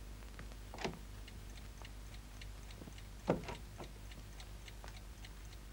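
A clock ticking steadily, with two louder short crackles of paper being handled, about a second in and again past three seconds, the second the louder.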